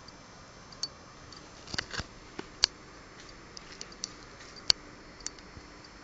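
Scattered sharp clicks and taps over a steady low hiss, with a short cluster of taps about two seconds in and single louder clicks a little later.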